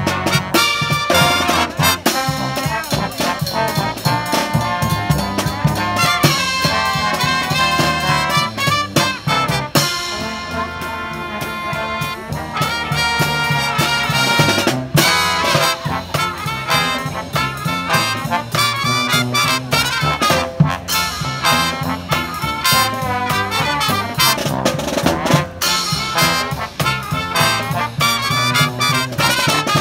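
Upbeat brass-led music in a swing style, with a steady beat.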